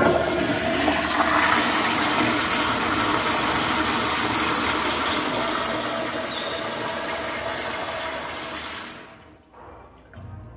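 New Reg. 1.28-gallon Kohler Kingston wall-hung toilet flushing through its flushometer valve. A loud rush of water is going at full force from the start, runs steadily, then tapers off and stops about nine seconds in.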